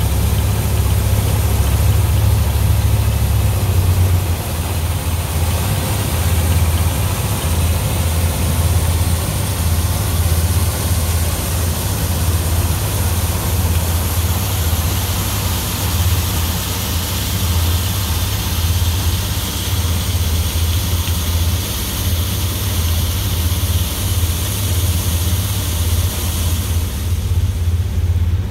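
Tractor engine and PTO-driven New Idea two-row corn picker with sheller running steadily: a constant low engine drone with a continuous hiss of machinery over it, the high hiss dropping away shortly before the end.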